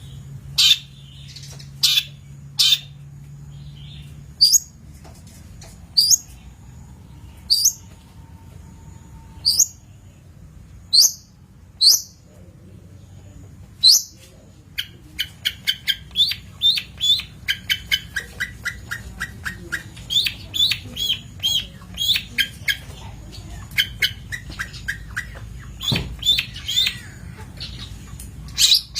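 Long-tailed shrike (cendet) calling and singing: sharp single calls spaced a second or two apart, then from about halfway a fast, varied run of chirping notes, several a second.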